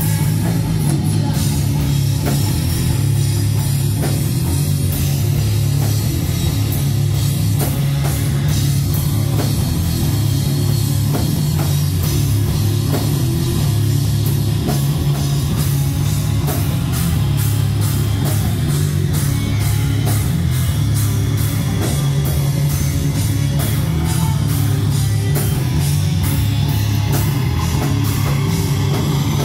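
Live heavy metal band playing loud and steady: electric guitars, bass guitar and a fast, busy drum kit.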